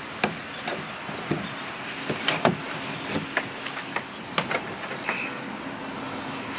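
Wooden bench boards knocking against the hull of a plastic boat as a homemade bench seat is pressed down and wedged into place: a scatter of sharp knocks, the loudest about two and a half seconds in.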